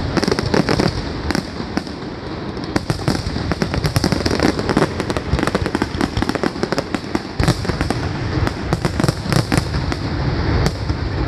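Aerial fireworks display: a dense, rapid run of bangs and crackling bursts, many per second and without a break.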